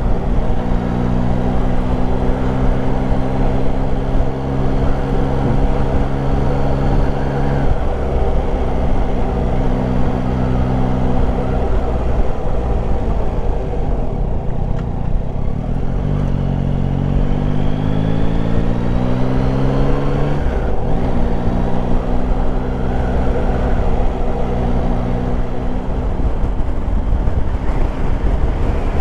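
Yamaha Tracer 9 GT's three-cylinder engine running at a steady cruise, with heavy wind rumble on the microphone. The engine note drops away for a few seconds near the middle, then rises steadily in pitch as the bike accelerates, and settles back to a steady note.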